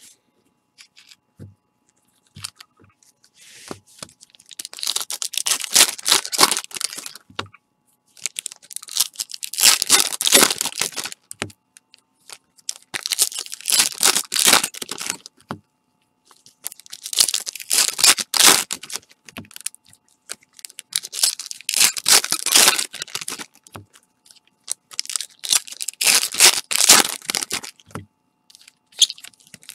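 Foil trading card pack wrappers being torn open and crinkled by gloved hands, in about six crackling bursts of two to three seconds each, with faint taps between them.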